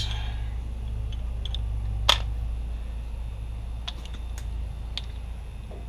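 A few light clicks and taps, with one sharper click about two seconds in, over a steady low hum.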